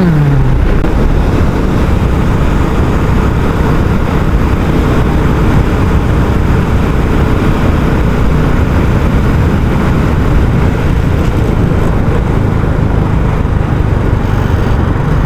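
Royal Enfield Classic 350 single-cylinder engine running through its stock exhaust while riding. Its note drops sharply right at the start, then holds steady.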